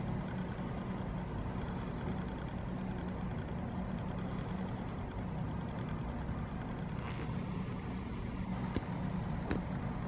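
Steady low rumble of background noise, with a few faint clicks in the last few seconds.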